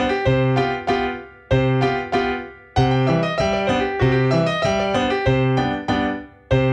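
Background piano music: a light tune of quick struck notes and chords in short phrases, each phrase fading away before the next begins.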